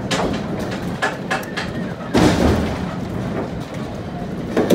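Holstein cattle stepping out of a livestock truck's metal trailer: hooves knocking on the trailer deck and bodies bumping its sides in a run of short knocks, with one loud heavy thud about two seconds in and another sharp thump near the end.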